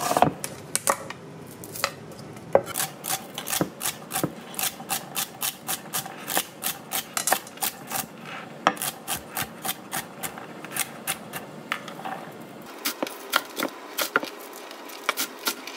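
Chef's knife chopping onion, celery and green onions on an end-grain wooden cutting board: a steady run of sharp knife strikes on the wood, about two to three a second.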